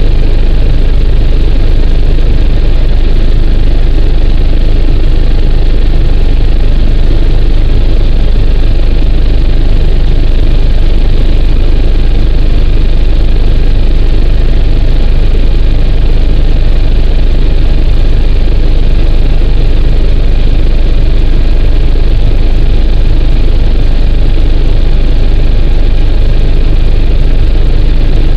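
Loud, steady rotor and engine noise inside the cabin of an AgustaWestland AW109 twin-turbine helicopter in flight: a constant deep drone with a few faint steady high tones above it.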